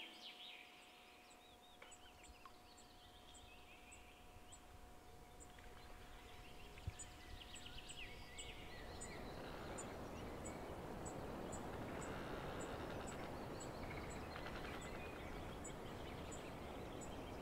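Wild birds singing and calling, with short chirps and warbling phrases and a high, thin call repeated many times. A steady background noise grows louder from about halfway.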